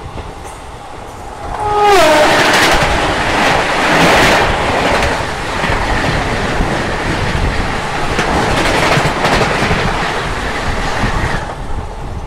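A train horn sounds and drops in pitch as an oncoming Indian passenger train with red LHB coaches rushes past on the next track. Its wheels clatter loudly for about nine seconds, and the noise falls away suddenly near the end as the last coach clears.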